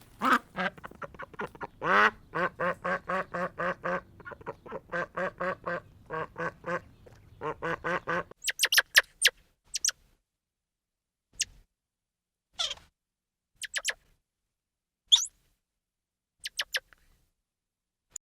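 Ducks quacking in quick, repeated runs of calls for about eight seconds. Then a few scattered, thin, very high chirps with quiet gaps between them.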